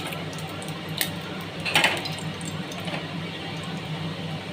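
A few metal clinks of a utensil against a kadai, the loudest about a second in and again just before two seconds, over a steady low hum.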